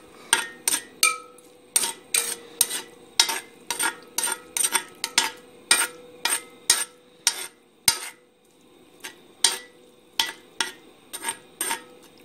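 A spoon stirring onions and liquid in a cast iron potjie pot, knocking and scraping against the pot's sides and bottom in quick, irregular clinks, about two to three a second, with a short lull partway through.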